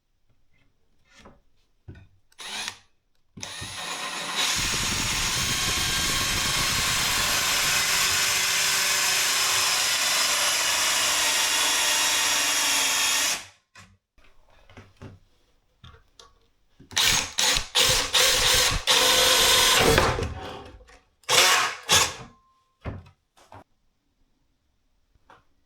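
A HiKOKI 18V cordless drill driver runs steadily for about ten seconds, starting about three seconds in. Near the end it is run again in several short trigger bursts.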